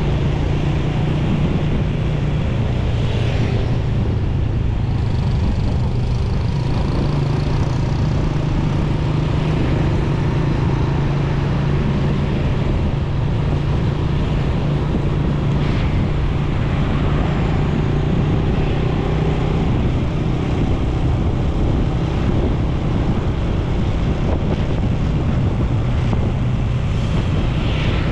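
Motorcycle engine running at a steady speed while riding: a steady low hum under a broad rush of road noise.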